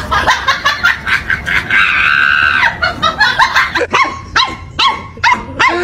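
Puppy yapping at a larger dog in play: a run of short, high-pitched barks that comes quicker and more regular in the second half.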